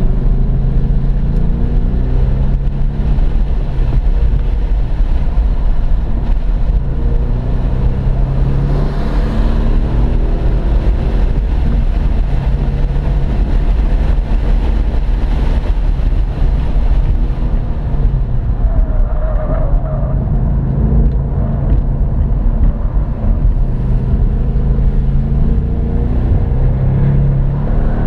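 2015 Mustang GT's 5.0 V8 under hard track driving, heard from inside the cabin: the revs climb and fall again and again through acceleration, shifts and lifts for corners, over steady road and wind noise.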